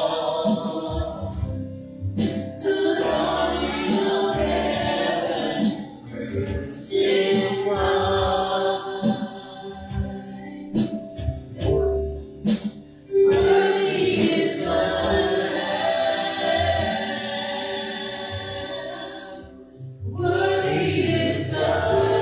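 A live worship band and congregation singing a slow worship song, with sustained sung notes over bass and regular drum or cymbal strokes.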